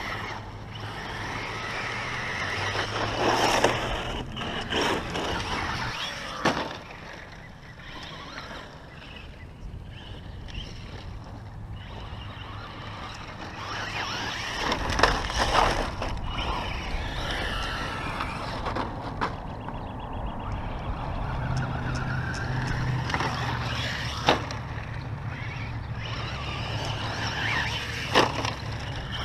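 Traxxas Slash 2WD RC truck with a Castle 5600kv brushless motor running hard on dirt. The motor whines up and down as the truck accelerates and slides, and there are sharp knocks from jump landings and tumbles about five times. A steady rumble of wind on the microphone runs underneath.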